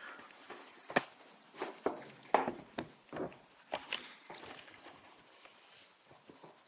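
Scattered light clicks and taps, about a dozen over several seconds, as a Feuerhand Baby Special 276 metal hurricane lantern is handled and turned over.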